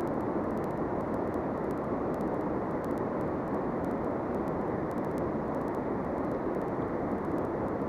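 Steady rushing of a fast, shallow river running over stones: an even, unbroken roar with no separate events.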